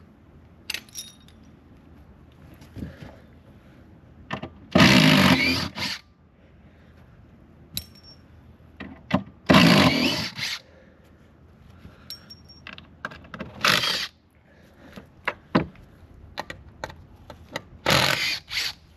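Carpentry work sounds: four loud bursts about a second long from a power tool, spaced a few seconds apart, with metal clinks and knocks of tools and timber in between.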